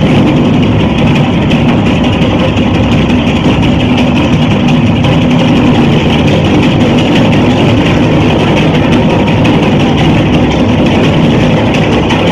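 A loud, steady, engine-like low drone from the dance's soundtrack, played over the hall's speakers, with no clear beat.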